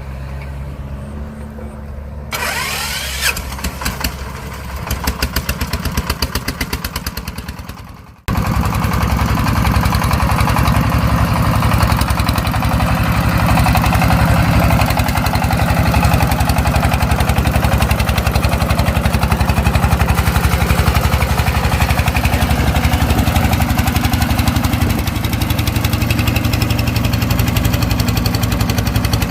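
Tractor engine running with a fast, even chugging that picks up speed over the first several seconds, then, after an abrupt break about eight seconds in, runs loud and steady.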